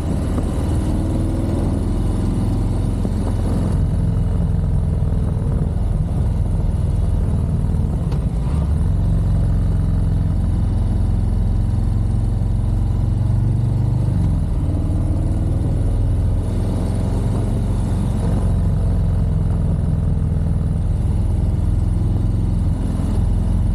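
Air-cooled Harley-Davidson V-twin engine running under way, its note rising and falling as the rider works the throttle through the turns, with a marked change in engine pitch about eight and a half seconds in.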